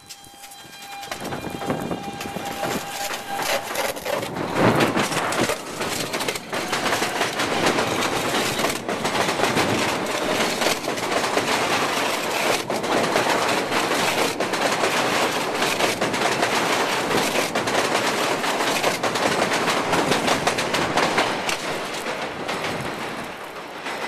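Subway train running through a blizzard with its current collectors arcing on the snow- and ice-covered third rail: a loud, dense crackling full of sharp pops that builds about a second in and fades near the end. A thin steady whine sounds over it for the first few seconds.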